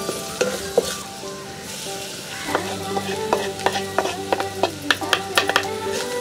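A metal spatula scraping and tapping in a black pan as sliced onion and grated coconut are stirred and roasted over a wood fire, with a light sizzle underneath. The scrapes and taps come quicker through the second half.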